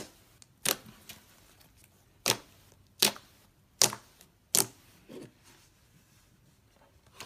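White fluffy slime being kneaded and pressed by hand, giving about six sharp popping clicks of trapped air a second or so apart. The pops stop about five seconds in.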